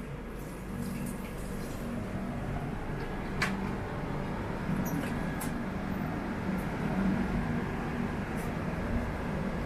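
Steady running noise of a moving passenger train, with a low hum and one sharp click about three and a half seconds in.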